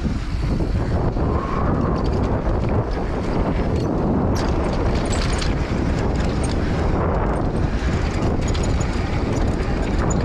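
Wind rushing over the microphone of a camera riding a downhill mountain bike, mixed with its tyres rolling on a packed-dirt trail. Scattered clicks and rattles from the bike over rough ground, bunched from about four to seven seconds in.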